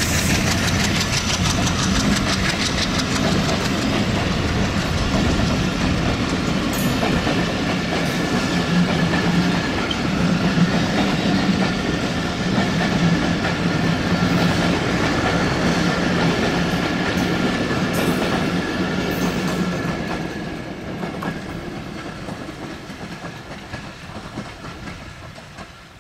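PT INKA-built broad-gauge passenger coaches rolling past close by, their wheels clattering and rumbling on the rails. The sound holds steady, then fades over the last several seconds as the end of the train passes and draws away.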